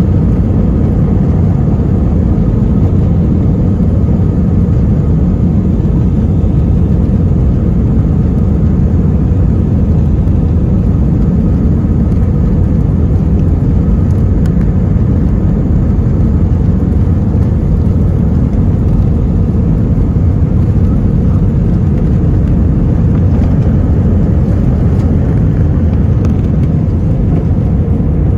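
Airbus A320 cabin on the takeoff roll and climb-out, heard from a window seat over the wing: a steady, loud rumble of the jet engines at takeoff power.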